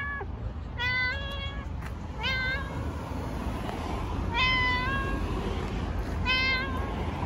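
Long-haired cat meowing repeatedly: the tail of one meow at the very start, then four short meows about a second and a half to two seconds apart.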